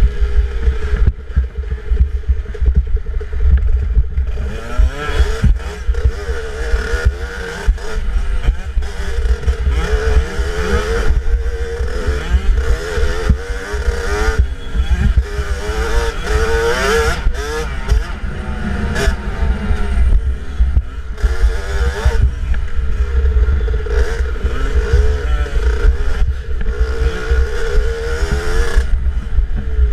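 65cc two-stroke dirt bike engine revving up and down continuously while riding a bumpy woods trail, with frequent clattering knocks and a heavy low rumble on the helmet-mounted microphone.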